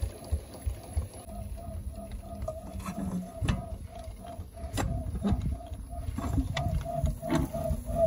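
Metal clanks as the cast-iron front firebox door of a half-scale Case steam traction engine is unlatched and swung open. They sound over a steady pulsing beat of about three a second.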